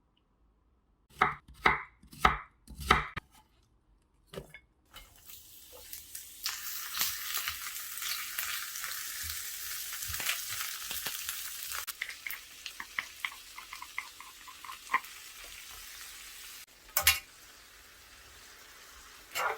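Four hard knife strokes on a cutting board, then food sizzling in a hot pan with scattered crackles. The sizzle fades after a few seconds, and a couple of sharp knocks come near the end.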